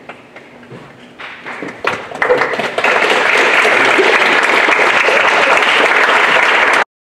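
Audience applauding: scattered claps about a second in swell into full, steady applause by about three seconds, which cuts off suddenly near the end.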